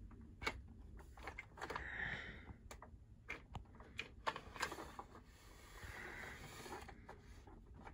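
Faint, scattered clicks and taps of plastic toy train-set pieces being handled.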